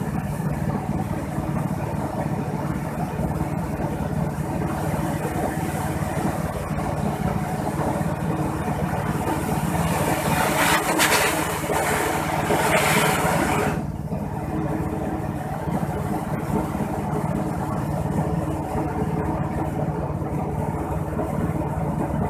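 Dry-coffee huller running steadily as it strips the parchment skin from the beans, hulled green beans pouring from its outlet chute. From about ten to fourteen seconds in, a louder hissing rush joins the machine noise and then cuts off suddenly.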